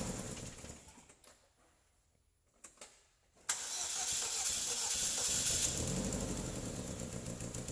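A 2009 Chevrolet Cobalt's four-cylinder engine shutting off and running down, then a near-silent pause with two faint clicks, then the engine starting abruptly about three and a half seconds in and running steadily.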